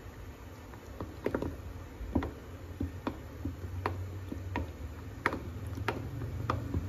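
A spoon clicking against the side of a container as wheat flour is stirred into water to make a thin slurry and break up its lumps, about one click every two-thirds of a second, over a steady low hum.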